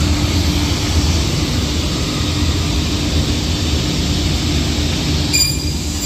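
Vertical panel saw cutting a sheet of MDF: a loud, steady machine noise of the motor and blade. A high whine joins about five seconds in.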